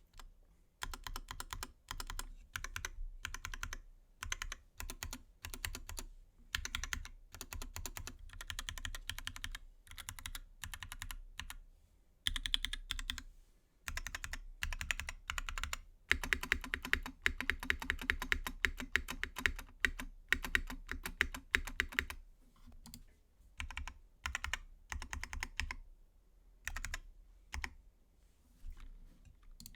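Duck Octagon v2 mechanical keyboard being typed on: lubed Gateron Yellow linear switches in an aluminium case with GMK keycaps, clacking in quick bursts of keystrokes separated by short pauses, with a longer fast run about halfway through.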